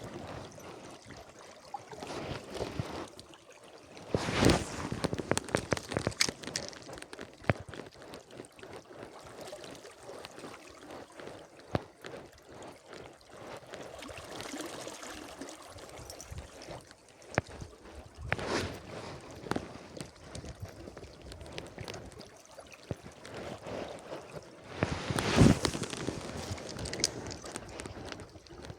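Stream water running steadily, broken by clicks and several louder bursts of knocking and rustling, the loudest about 25 seconds in.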